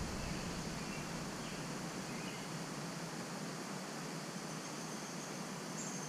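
Steady outdoor ambient hiss, with a few faint, short high chirps a second or two in and again near the end.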